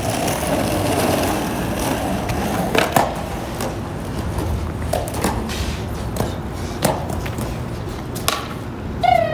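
Skateboard wheels rolling over rough asphalt, louder in the first couple of seconds, with several sharp knocks along the way.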